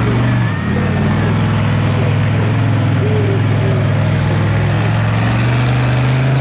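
Engine of a lifted mud-bogging pickup truck on oversized tyres, running loud and steady as it drives through mud, revving slightly higher about five seconds in.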